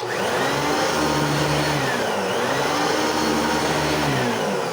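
Singer SST-315 upright vacuum cleaner's 6.2 amp motor switching on abruptly and running. Its pitch sags and recovers about two seconds in, then sags again near the end as the touchy handle-operated power switch cuts it off and the motor begins to wind down.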